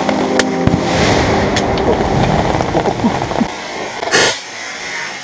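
A rifle shot about four seconds in, the loudest sound here, with a couple of lighter sharp clicks earlier on.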